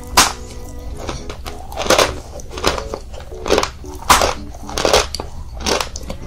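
Chunks of chalk being bitten and chewed close to the microphone, a sharp crunch every second or so.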